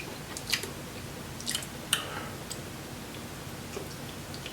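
Close-up eating sounds from a mukbang of seafood boil: wet chewing with a few sharp clicks and smacks in the first two seconds, then quieter.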